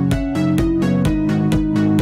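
Electronic background music with a steady dance beat: a kick drum about twice a second, quicker hi-hat-like ticks between, and held synth chords underneath.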